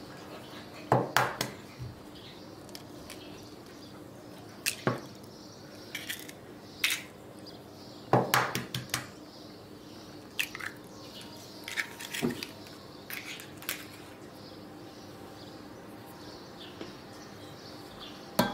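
Eggs being cracked and broken open over a stainless steel mixing bowl of flour: a series of sharp taps and shell cracks, scattered through and sometimes in quick clusters.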